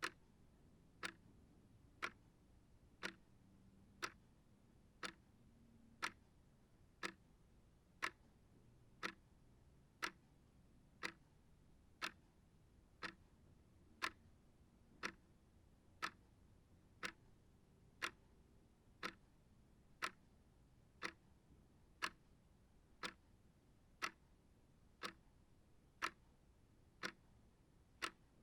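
Small shelf clock ticking, sharp, even ticks about once a second.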